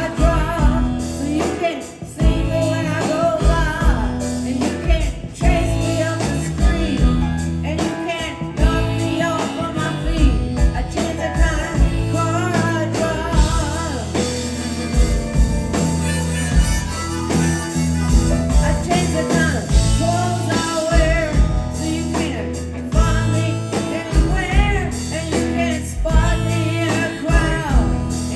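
Live rock band playing a blues-rock song, with electric guitar, bass and drums keeping a steady beat under a singing voice.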